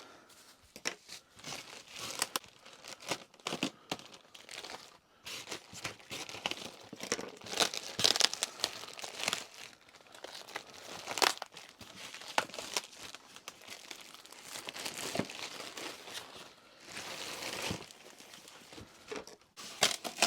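A cardboard parcel being cut open and unpacked by hand: packing tape and cardboard torn, packaging crumpling and crinkling in irregular bursts, with sharp snips and rustles.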